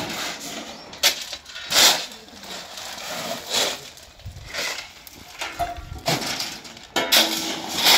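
Shovels scraping into a pile of crushed stone chips and the stone being thrown into a tractor trolley: a crunching, rattling scrape every second or two, repeated several times.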